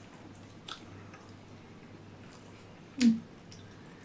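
Hand-eating sounds: fingers mixing and squishing rice on steel plates, with a faint low hum, a small click, and one short loud sound about three seconds in.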